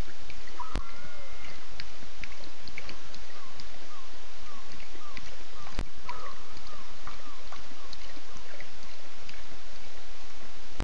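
Night-time waterhole ambience: a steady hiss under many short, repeated chirps and ticks from small calling animals. Two sharp clicks, about one second and six seconds in.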